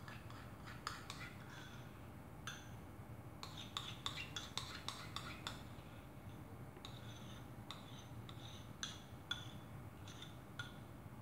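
Metal spoon clinking and scraping against a small cup while spooning out sweetened condensed milk: faint, scattered light clicks and taps, thickest a few seconds in.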